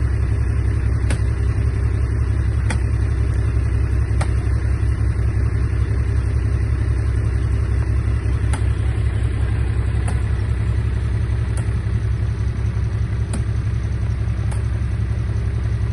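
Komatsu D31A bulldozer's diesel engine running steadily with a deep drone, with faint sharp ticks every second or two.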